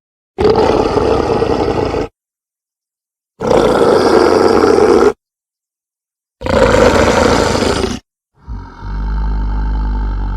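Film sound effects of King Kong's vocalisations: three separate roars of about a second and a half each, cut off into dead silence between them. About eight seconds in comes a lower, longer vocalisation with a deep rumble beneath it.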